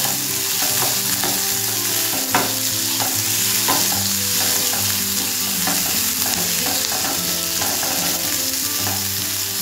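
Chopped onion and green chilli sizzling in hot mustard oil in a nonstick frying pan, stirred with a wooden spatula that scrapes and knocks against the pan every second or so. The onions are being lightly fried toward a pale brown.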